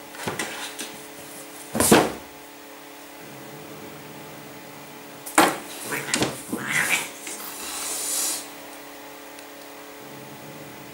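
Two cats scuffling in a shelf gap between cardboard boxes: paws scrabbling and knocking against the boxes and shelf. A loud thump comes just before two seconds in, and a second flurry of knocks and scrapes follows in the middle, ending in a brief hissy rush.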